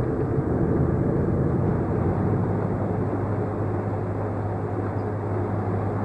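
Steady mechanical drone with a constant low hum, easing slightly in loudness after about two seconds.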